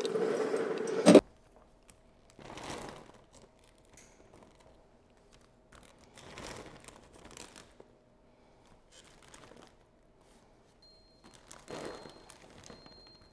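Running tap water rushing into a sink, cutting off suddenly about a second in. Then plastic zip-top freezer bags crinkling in several short bursts a few seconds apart, as drained home-canned corn is poured into them.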